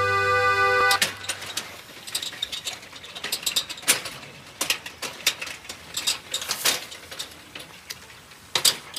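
Music stops about a second in; then a loaded wheelbarrow rattles and clanks as it is pushed and handled, a run of irregular sharp knocks and clicks.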